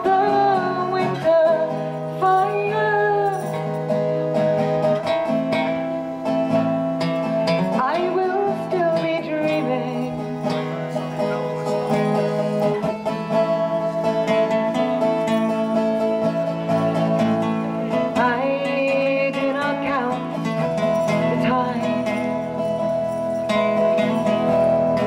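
Live acoustic folk music: strummed acoustic guitar under a sustained, wavering lead melody line.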